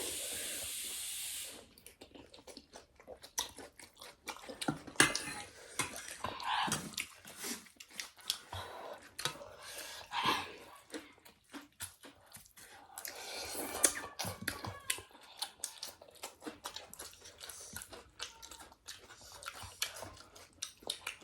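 Close-up mukbang eating sounds: people chewing thukpa noodle soup, with many irregular wet smacks and clicks. A steady loud hiss runs for the first second and a half, then stops.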